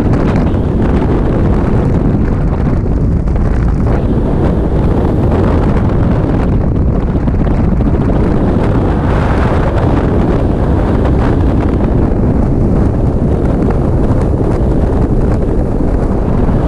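Loud, steady rush of skydiving freefall wind buffeting a camera's microphone.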